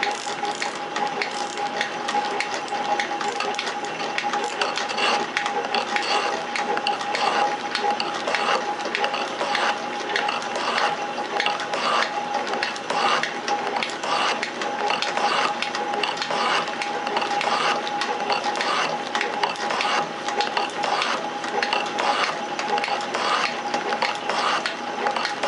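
Metal shaper running and cutting steel, its ram stroking back and forth with a rhythmic clack about once a second over a steady whine from the drive.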